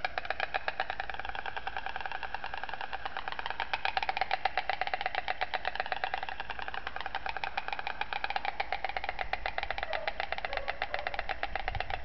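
Pair of white storks bill-clattering on their nest: a long, rapid, rattling clatter of bills snapping together, a little louder about four seconds in. This is their greeting display as the pair reunites.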